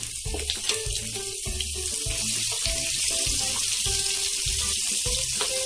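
Chopped green chillies, ginger and cumin seeds sizzling in hot oil in a frying pan, a steady frying hiss.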